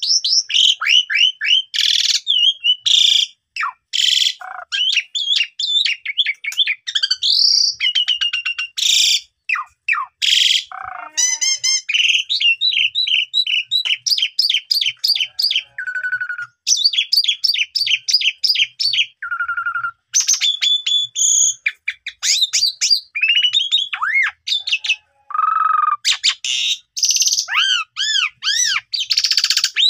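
Pied starling (jalak suren) singing a fast, nearly unbroken song of varied whistles, rising and falling glides, chirps and rapid rattling trills. Its strings of learned phrases are typical of a bird in full song.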